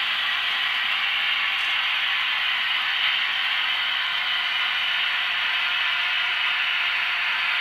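Märklin model trains running on the layout: a steady mechanical rattle and whir of wheels on the track and small locomotive motors.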